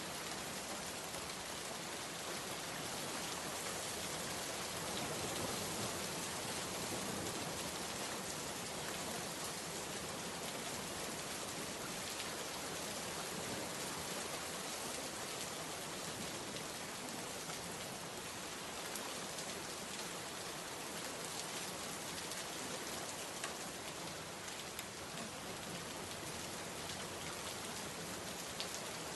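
Steady rainfall, an even hiss of rain with fine pattering drops on a surface, unchanging throughout.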